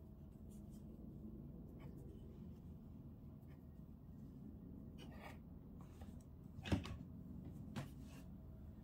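Faint handling sounds of crocheting with a metal crochet hook in yarn: light scratching and scattered ticks over a low steady hum, with two sharper clicks about a second apart late on.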